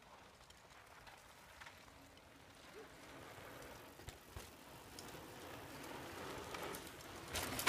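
Mountain bikes riding past on a dirt trail: a steady hiss of tyres on dirt with scattered clicks and rattles, growing louder as the riders approach, with a louder clatter near the end.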